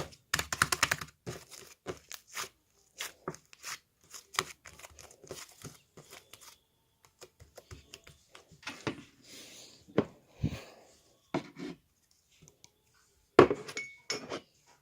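Irregular crinkling, tearing and clicking handling noises, with a dense crackle about half a second in and a sharper, louder one near the end.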